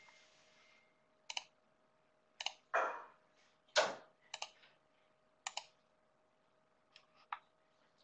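Faint, scattered clicking of a computer mouse and keyboard, several clicks coming in quick pairs. Two louder knocks fall about three and four seconds in.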